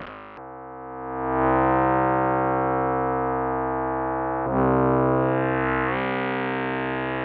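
Fancy Synthesis K-Accumulator synthesizer module in its FBPM2 mode, playing a sustained tone rich in harmonics. The tone swells in about half a second in, and its timbre shifts about four and a half seconds in.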